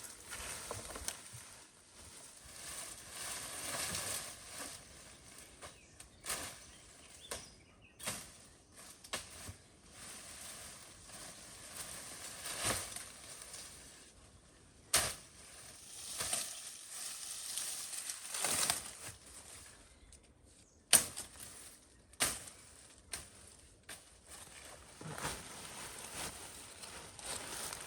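Irregular rustling and crackling of dry branches and brush being handled, with a few sharp snaps or knocks.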